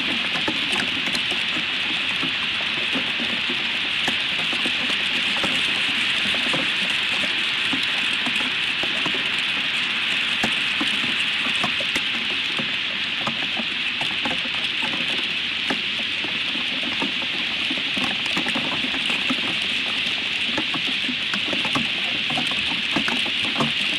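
Hail falling on the nest and surrounding branches: a dense, steady patter of small hard ticks over a continuous hiss of the storm.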